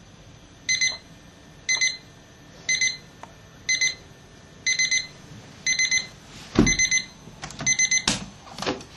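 Digital alarm clock going off: a burst of quick, high beeps about once a second, each burst a little longer than the one before. A hand knocks against the clock, loudest a little before the end, and the beeping stops.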